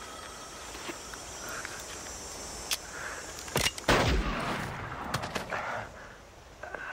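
A few sharp gunshots: one about three seconds in, two close together a second later, the second the loudest with a long echoing tail, then a few lighter cracks.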